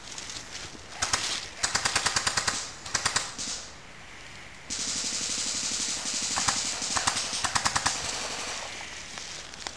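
Airsoft guns firing several short bursts of rapid full-auto shots, a run of sharp, evenly spaced clicks.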